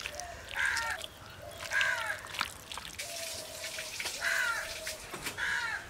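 Crows cawing: a run of short, harsh caws, roughly one a second, with a lull midway.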